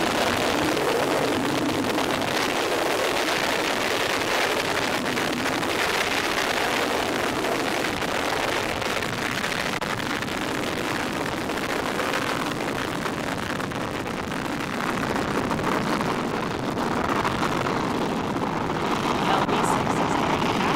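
Astra Rocket 3.3's first-stage engines give a steady rushing roar during the climb after liftoff, with faint crackling near the end. One of its five first-stage engines is out.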